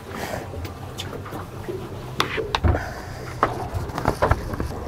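Water lapping and slapping against the side of a small boat, with a few scattered sharp knocks and clicks, most of them in the second half.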